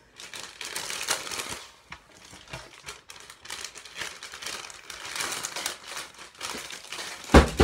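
Plastic MRE packaging crinkling and rustling as the meal pouch is worked into the flameless ration heater bag. Near the end, a loud thud as a torch drops onto the floor.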